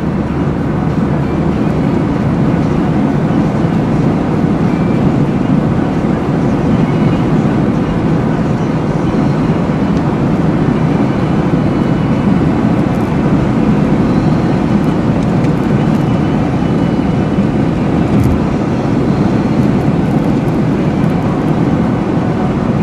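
Car driving at highway speed, heard from inside the cabin: a steady hum of tyres on the road mixed with engine noise.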